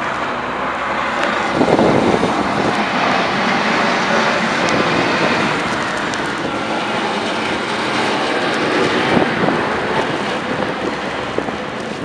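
Heavy snowplow dump truck driving past close by, its diesel engine running and its front plow blade pushing snow along the road in a continuous rushing scrape. It grows louder about two seconds in as it passes, then slowly fades.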